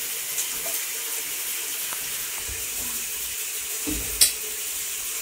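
Tap water running in a steady stream into a bathroom sink, an even hiss. A single sharp knock about four seconds in.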